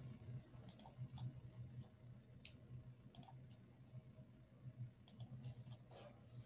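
Faint, irregular clicks of a computer mouse, a dozen or so scattered in small clusters, over a low steady hum.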